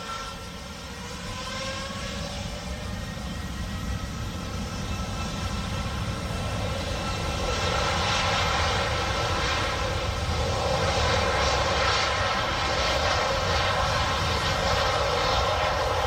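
Boeing 787-8's Rolls-Royce Trent 1000 turbofans spooling up to takeoff thrust on the takeoff roll: a rising whine in the first couple of seconds, then a steady roar that grows louder and stays at full power from about halfway through.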